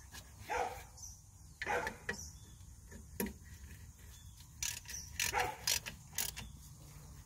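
Scattered metallic clicks and clinks of a hand wrench working on a drum brake's wheel cylinder and brake-line fitting, with a cluster of quick clicks in the second half.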